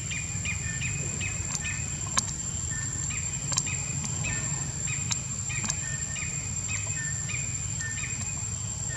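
A bird calling over and over in short, flat chirps, two or three a second, over a steady high-pitched whine and a low rumble. A few sharp clicks, the loudest about two seconds in.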